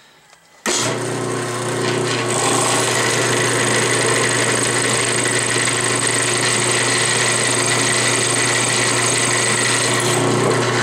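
Drill press switched on about a second in, its motor running with a steady hum while the twist drill cuts an oil hole through the cast-iron lathe saddle; the cutting noise thickens about two seconds in, and the machine stops at the very end.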